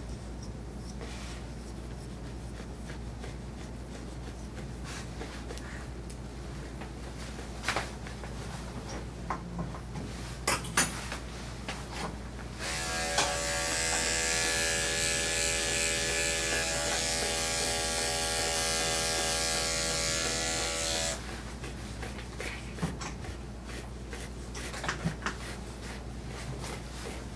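Electric dog-grooming clippers running steadily for about eight seconds, switched on about halfway through and off again, with a few light clicks before they start.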